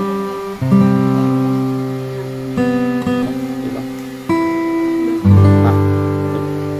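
Acoustic guitar music: strummed chords held and changed every one to two seconds.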